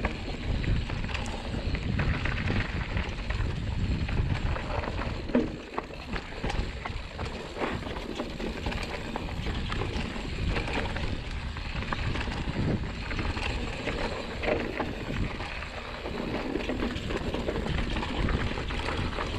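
Mountain bike rolling down a rough dirt and rock trail: wind rumbling on the microphone and tyres running over dirt and stones, with frequent clicks and knocks as the bike rattles over bumps.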